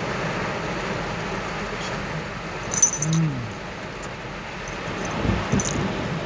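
Heavy thunderstorm rain falling as a steady hiss. About three seconds in, a short low moan rises and then falls in pitch. A few brief knocks and clicks come near the end.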